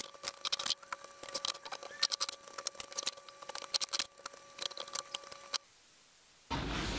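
Fire hose being measured and handled on a wooden workbench: irregular scratchy clicks and scrapes over a faint steady hum. The sound drops out briefly near the end, then resumes louder.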